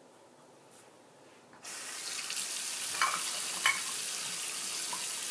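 Bathroom sink tap turned on about a second and a half in, then water running steadily into the basin, as the safety razor is rinsed between shaving passes. Two sharp clicks come near the middle.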